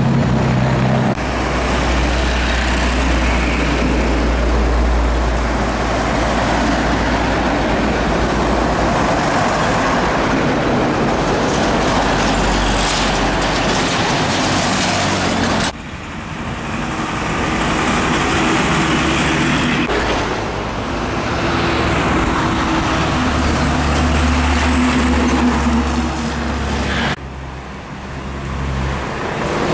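Heavy diesel trucks driving past close by on a highway: engines running, with tyre and road noise. The sound changes abruptly twice, near the middle and near the end, as one passing truck gives way to the next.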